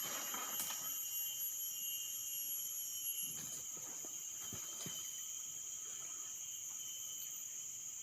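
Steady insect chorus: a continuous high-pitched drone at several pitches, with a few faint soft rustles and knocks partway through.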